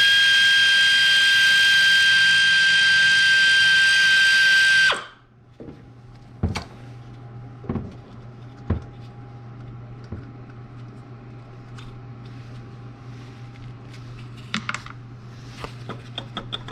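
Cordless power tool spinning off the ignition coil's 10 mm mounting nuts: a loud, steady high whine that cuts off suddenly about five seconds in. After it come a few light clicks and knocks.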